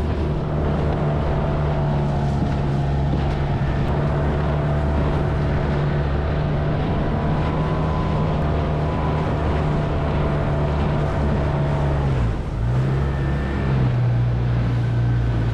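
Dinghy outboard motor running steadily under way; about twelve seconds in its note dips briefly and settles lower.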